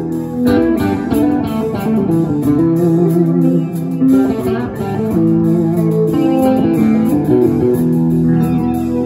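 Live rock band playing: an electric guitar plays a line of changing held notes over drums.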